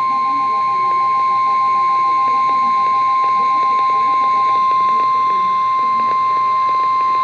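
Weather-radio emergency alert attention tone: one loud, steady, high single-pitch tone held unbroken, the warning alarm signal that announces a severe thunderstorm warning. A fainter pulsing beep sounds under it for about the first half.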